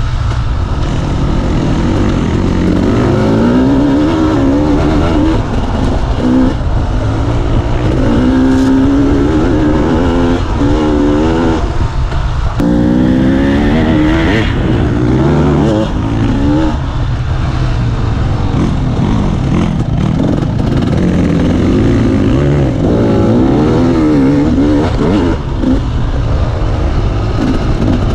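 Dirt bike engine under load on a rough trail, revving up and dropping back again and again as the rider works the throttle and shifts, with wind rumble on the microphone underneath.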